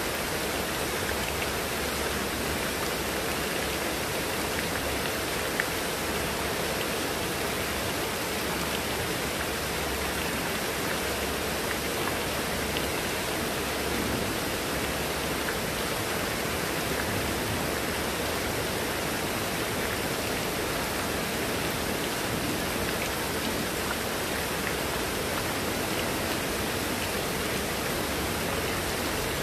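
Heavy rain falling steadily on foliage and a wet tabletop, an even hiss with no letup.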